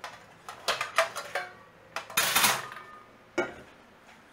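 Stainless steel mixing bowl clanking against stacked metal pots and pans as it is pulled off a shelf: several quick clanks with short ringing, a longer scrape about two seconds in, then a single knock as it is set down.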